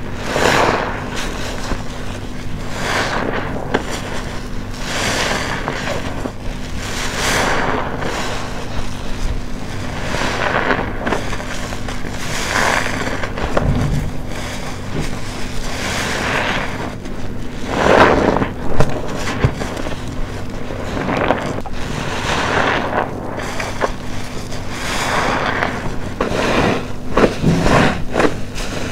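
Wet, soap-foamed sponge being squeezed and released by hand, a squelching rush of foam and water about once every two seconds.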